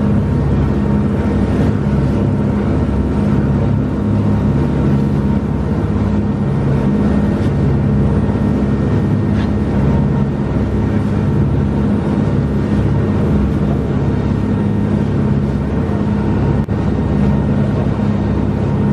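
Charter fishing boat's engine running steadily under way at speed, a constant low drone, with the churning wake and rushing air behind it.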